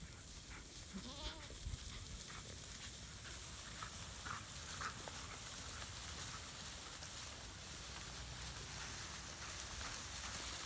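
Goats bleating as the herd moves through dry grass: one bleat rising and falling about a second in, then a few short, higher calls around four to five seconds. Underneath is a faint rustle of dry grass that grows louder toward the end.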